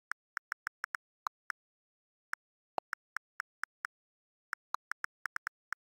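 Smartphone on-screen keyboard key-press clicks during typing: short dry clicks in quick irregular runs of several a second, with brief pauses between words.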